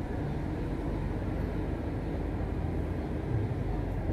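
Tram running, a steady low rumble with no sharp events.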